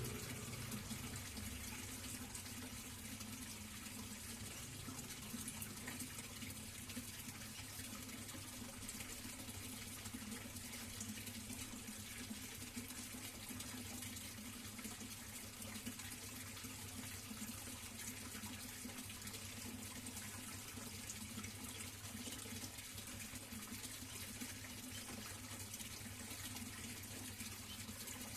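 Steady running water with a low, even hum underneath.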